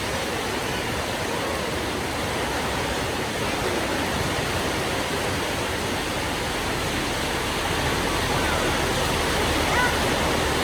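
Heavy rain pouring down steadily, a dense even hiss that grows slightly louder near the end.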